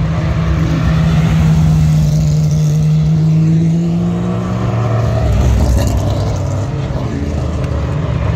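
Historic race car engines running at low speed. One engine holds a steady note that rises slightly about four seconds in and then fades as a deeper engine note takes over.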